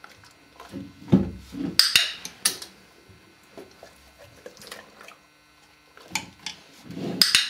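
A small bathroom drawer knocking and rattling as a German Shepherd tugs at a strap tied to its handle, with a few sharp clicks. The knocks come in two clusters, one starting about a second in and one from about six seconds in to the end.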